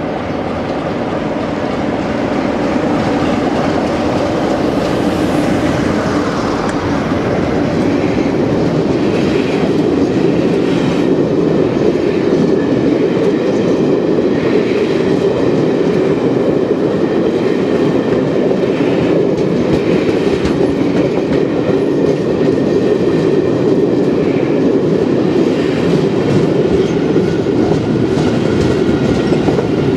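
Passing train of heritage railtour coaches running through a station at speed: the noise of the wheels on the rails grows over the first few seconds as the train arrives, then holds steady as the long line of coaches goes by close to the platform.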